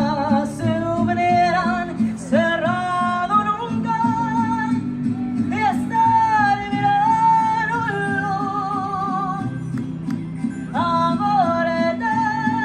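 A folk song sung to strummed acoustic guitar: one voice holding long notes with vibrato and sliding between them, over a steady guitar strum.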